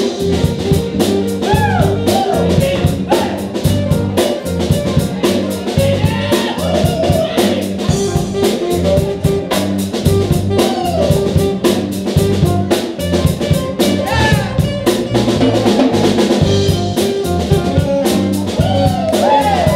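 A small band playing live: a drum kit keeps a steady beat under electric guitar, bass and horns in an upbeat jazz instrumental, with gliding melody notes on top.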